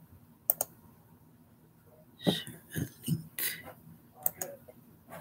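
Scattered computer keyboard clicks and light taps: two quick ones, then a short cluster partway through, then two more near the end.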